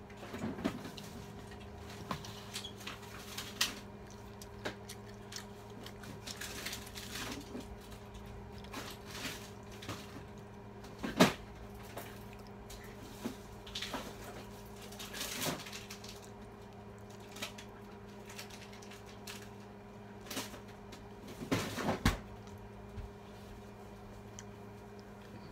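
Scattered clinks and knocks of cutlery and dishes on a dining table during a meal, with one sharper knock about eleven seconds in and a short cluster a little past twenty seconds, over a steady low hum.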